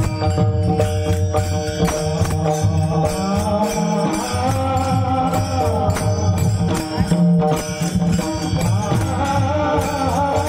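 Marathi devotional kirtan: a lead voice chanting and singing a bhajan over steady held instrumental tones, with regular strikes of small hand cymbals and percussion keeping the rhythm.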